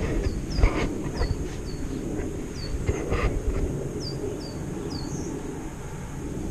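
A small bird chirping over and over, short high notes that fall in pitch, about ten in all, over a steady low rumble.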